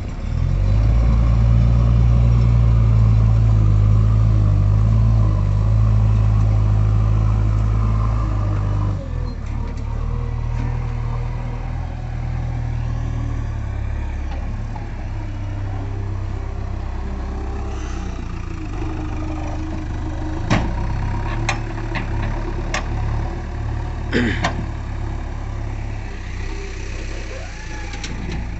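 JCB 3DX backhoe loader's diesel engine running loud and steady, dropping to a lower, quieter run about nine seconds in. A few sharp knocks sound in the second half.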